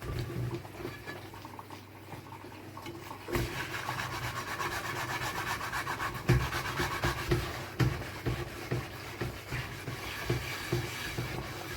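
Dishes being washed by hand at a sink: scrubbing and rubbing with scattered light knocks of dishes, joined a few seconds in by the steady rush of running tap water.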